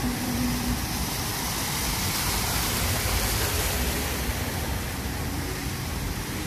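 Cars driving through a flooded street: tyres swishing and splashing through the water with engines running, over a steady hiss of water. The hiss swells for a couple of seconds in the middle.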